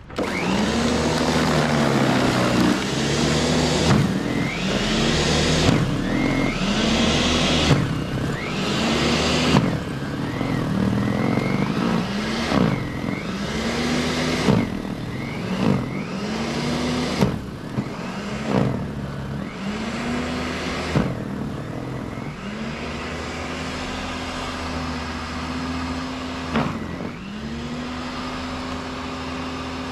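Greenworks 13-amp corded electric snow blower running as it is pushed through piled snow on a walkway, with a hiss of snow being churned and thrown. Its motor pitch dips and recovers about every two seconds as the auger loads up and clears, and it holds steadier in the last several seconds.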